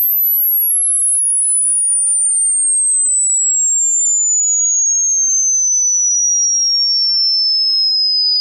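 A loud, pure electronic sine tone sweeping slowly and smoothly downward in pitch, from a piercingly high whine to a lower but still shrill tone, without a break.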